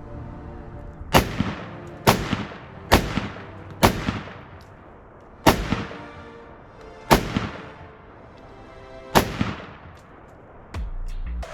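Radical Firearms RF-15 AR-15 rifle fired semi-automatically, seven single shots at uneven intervals of one to two seconds, each with a long echoing tail.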